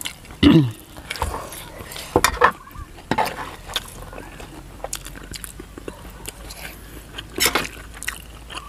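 Steel spoons clinking and scraping against a metal serving tray as food is scooped up, in scattered separate strokes. A short vocal sound, falling in pitch, comes about half a second in and is the loudest moment.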